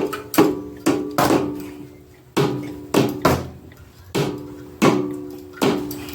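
Repeated sharp metal strikes, about ten in six seconds at an uneven pace, each leaving a short ringing metallic tone. This is typical of knocking a small block Chevy 350's cylinder head to break it loose from the block once the head bolts are out.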